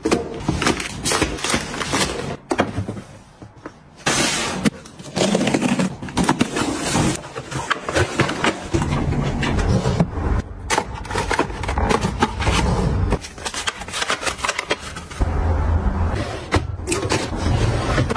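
Close-up handling sounds of household goods being put away: plastic-wrapped packs knocked and rustled into a plastic bin, and wire-mesh and plastic storage drawers slid in and out with scrapes and clicks. The sounds are a quick run of short knocks and clicks mixed with scraping.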